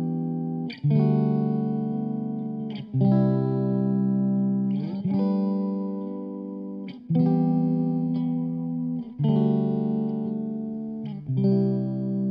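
Background music: guitar chords, each struck and left to ring, changing about every two seconds.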